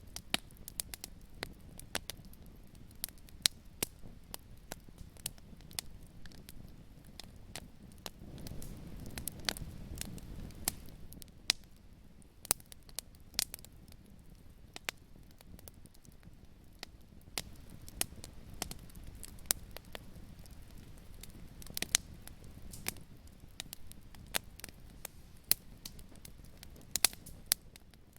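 Fireplace fire crackling, with frequent irregular sharp pops over a low rumble of flame that swells twice, about a third of the way in and again past the middle.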